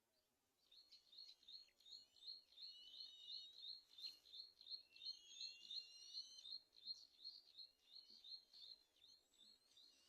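Faint bird calls: a long run of short, high chirps repeated about four times a second, with other chirps and whistles over it.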